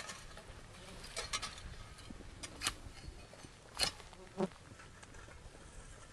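Long-handled trail tools scraping and knocking against dry, rocky desert ground as a new trail is cut: a handful of short sharp scrapes and knocks at uneven intervals.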